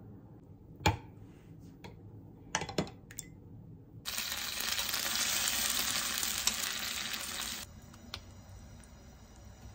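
A metal spoon clinks against a glass bowl and a tin can as canned peeled tomatoes are scooped and stirred: one sharp clink about a second in and a quick cluster of clinks near three seconds. Then a steady hiss runs for about three and a half seconds, starting and stopping abruptly.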